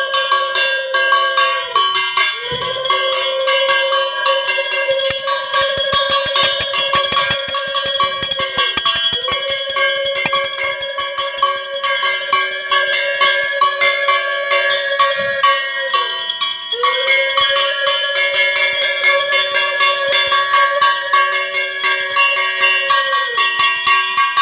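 A puja hand bell rung continuously throughout. Over it a conch shell is blown in long held blasts of about six to seven seconds each, each blast swelling in and dipping at its end, with a short break for breath between them.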